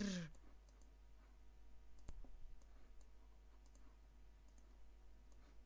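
Near silence with a few faint, sharp clicks, the clearest about two seconds in, after a voice trails off at the very start.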